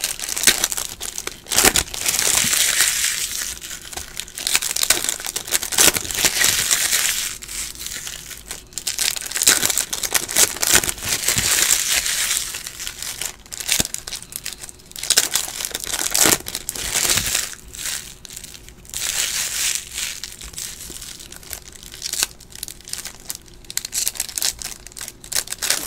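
Plastic trading-card pack wrappers crinkling and tearing as packs are handled and ripped open, the crackle coming and going with a few sharp snaps.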